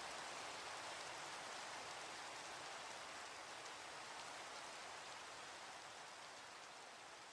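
Steady rain falling, an even hiss of drops, slowly fading out over the last few seconds.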